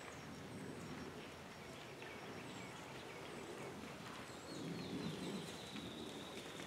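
Quiet woodland ambience: small birds give short, high chirps, and a thin steady high note comes in a little past halfway. A brief, louder low rustle sounds about five seconds in.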